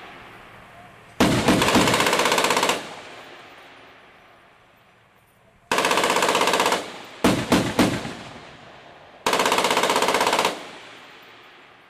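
Automatic gunfire from a wheeled armoured vehicle's mounted gun on a firing range. There are three long bursts of rapid shots, and a few short bursts between the second and third. Each burst echoes away slowly.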